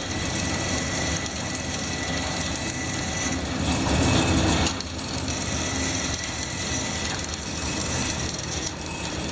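Machinery running steadily, a continuous mechanical rumble with a thin high whine over it and a brief dip in level about halfway through.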